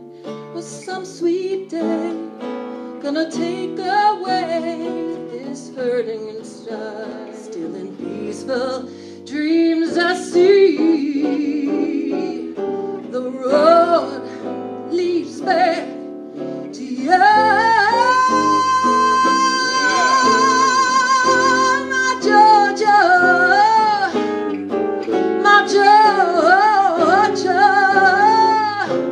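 A woman singing with archtop guitar accompaniment. Past the middle she holds one long high note with vibrato for about five seconds.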